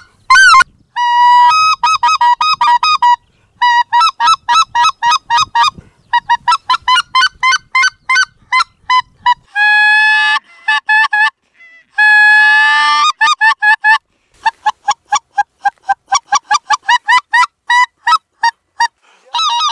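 Mouth-blown goose call sounding a bean-goose 'talk' to draw in flying geese: rapid runs of short honks, about four or five a second, broken by two longer drawn-out calls about ten and twelve seconds in.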